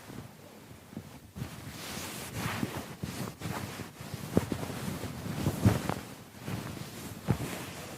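Scrubbing noise in uneven swelling strokes as a keyboard is cleaned, with a few light knocks about halfway through and near the end.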